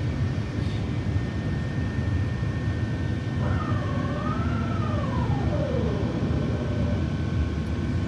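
Steady low rumble of an Airbus A350-900 airliner cabin in flight on approach to landing. About halfway through, a faint whining tone rises and then glides down over a couple of seconds.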